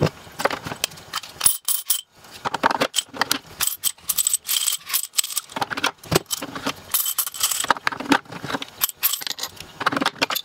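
Loose coins clinking and rattling as they are tipped out of plastic coin tubes into small glass jars: a quick, irregular clatter of many small metal-on-glass impacts.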